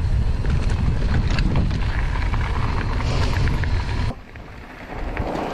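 Mountain bike riding fast down a dirt trail: wind rushing over the microphone with a low rumble of tyres on the ground and scattered clicks and rattles from the bike. About four seconds in it cuts off suddenly to a much quieter hiss.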